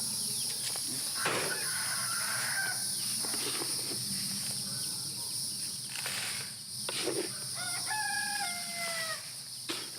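A rooster crows once near the end, a call of about a second and a half that steps down in pitch.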